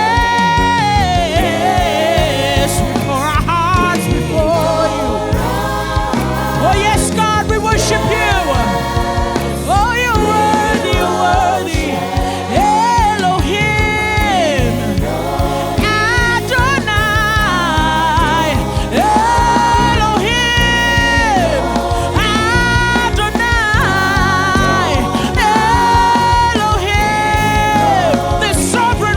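Gospel worship music: voices singing long, wavering held notes over sustained keyboard-type chords, with no clear beat.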